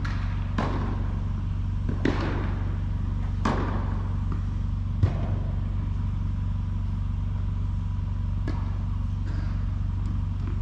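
Tennis ball being hit back and forth in a rally: four strokes about a second and a half apart, then another near the end, each ringing briefly in the echo of an indoor tennis hall. A steady low hum runs under them.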